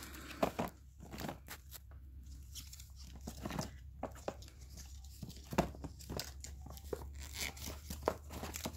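Firework packaging being handled: quiet, irregular crinkling and crackling with scattered taps as items are pulled from the box.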